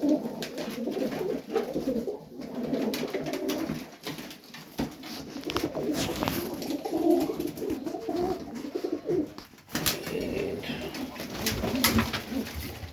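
Several domestic pigeons cooing at once in a loft, a steady overlapping warble of low, pulsing coos, with scattered sharp clicks and taps through it.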